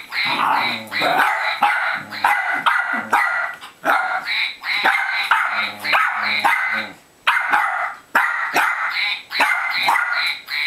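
Dogs barking in quick repeated volleys, with a brief lull about seven seconds in: a squabble over a toy duck between a wirehaired dachshund guarding it and a Jack Russell terrier puppy.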